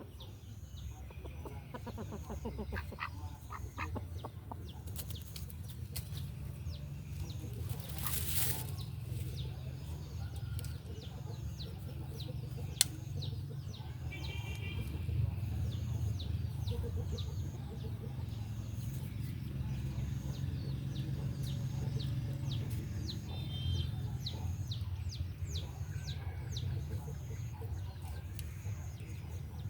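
Chickens clucking over a steady low rumble, with a few short higher calls.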